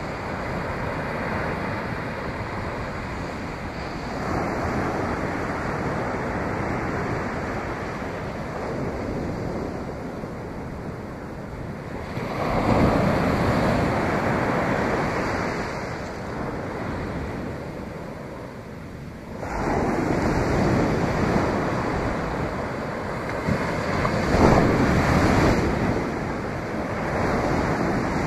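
Ocean surf breaking on a sandy beach, a steady rush with three louder swells of breaking waves, about halfway through and again near the end, with wind on the microphone.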